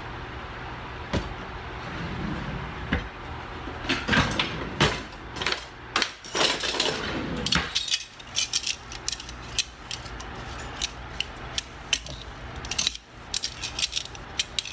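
Kitchen tongs clicking and clattering against a glass mixing bowl as shredded hash browns are tossed. The sharp clicks begin about four seconds in and become rapid and dense toward the end.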